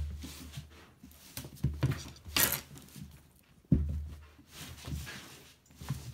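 A cat's paws thudding and scuffing on a carpeted floor as it leaps up and pounces in play, with a few deep thuds and a sharp rustle about two and a half seconds in.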